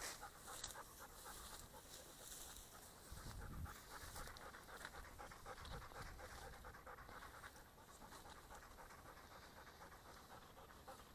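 A dog panting quickly and steadily, faint.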